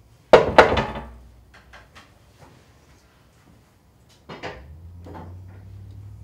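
Two loud knocks about a quarter second apart, each with a short ring, followed by a few lighter clicks and clatter; about four seconds in comes another burst of clatter, and then a low steady hum sets in.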